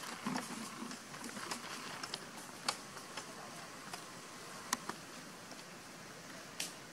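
A long-tailed macaque handles and bites a small drink carton, making a few sharp crinkles and clicks over a steady outdoor hiss.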